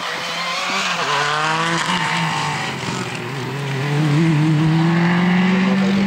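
Rally car engines under hard acceleration: the pitch climbs and breaks off as at a gear change, then a louder engine note rises slowly and steadily, loudest near the end.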